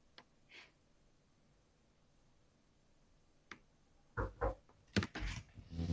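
Mechanical keyboard keystrokes in a quiet small room: a few faint isolated clicks, then, about four seconds in, a burst of several loud, deep thocky key presses.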